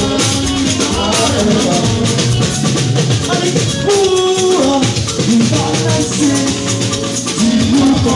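A man singing into a microphone over music with shaker and drum percussion.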